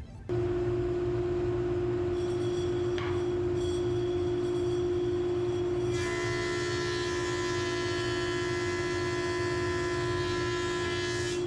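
Electric power tool motor running at a steady high pitch, cutting in and out abruptly. About halfway through, the tone turns harsher, with more overtones.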